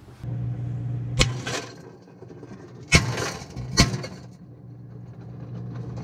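Three sharp pops, like little firecrackers, as live .22 LR rimfire cartridges cook off inside a running microwave oven. The oven's steady low hum runs underneath.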